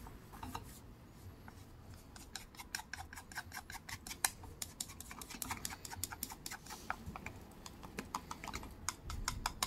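Wooden chopsticks stirring and scraping soft-set scrambled egg in a small nonstick frying pan, a quick, uneven run of light clicks and taps against the pan. The clicks are sparse at first and come thick and fast from about two seconds in.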